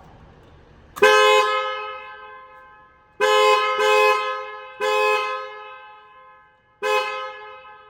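Tesla Model 3's two-tone car horn sounded in five short honks: one about a second in, two close together near the middle, then two more, each dying away with an echo. This is the horn being tested after a new steering wheel has been fitted.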